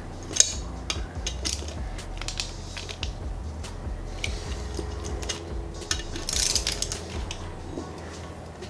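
Hand socket ratchet on an extension clicking in irregular runs as it is swung back and forth, tightening a bolt on a turbocharger.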